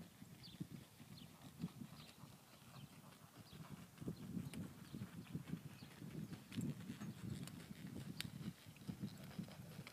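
A horse's hoofbeats on soft arena dirt: dull, irregular thuds as the horse moves around the arena, fainter once it is out of view.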